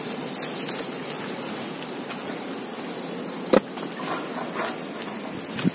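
Steady outdoor hiss with a faint high steady tone above it, broken by one sharp knock about three and a half seconds in.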